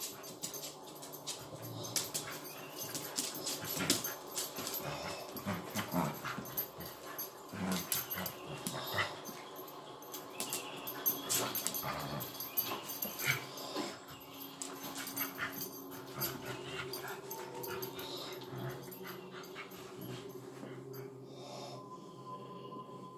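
Two Griffon Fauve de Bretagne-type dogs play-fighting, growling at each other, with many sharp clicks of paws scrabbling on a wooden floor. The scuffle grows quieter in the last third.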